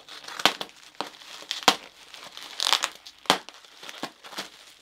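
Knife slitting open a plastic bubble-wrap mailer: the plastic crinkles and tears, with several sharp crackles.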